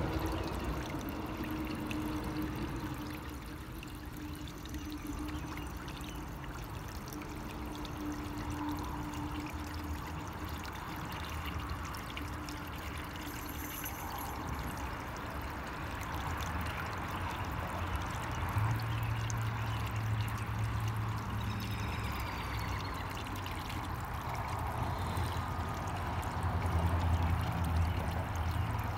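Koi pond's water return splashing and trickling steadily onto the pond surface, with a low steady hum under it in the second half.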